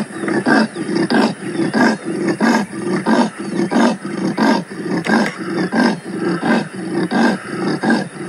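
Leopard's sawing call: a long, staccato series of grunts, evenly spaced at about three a second.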